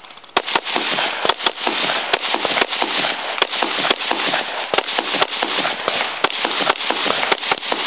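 Shotgun fired in a rapid string of shots, about three a second, at steel targets.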